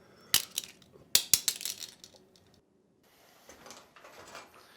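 Nuts in their shells clattering and cracking: a run of sharp clicks and crunches, loudest just after a second in, then softer rustling.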